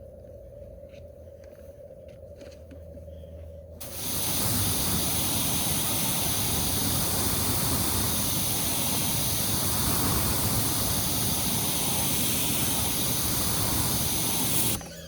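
A steady jet of water spraying from a hose, rinsing the cleaner off the scrubbed aluminum boat hull; it starts about four seconds in as an even hiss and cuts off suddenly near the end.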